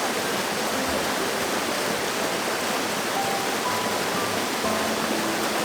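Small stream's running water, a steady, even rush that holds throughout, with soft background music of held notes underneath.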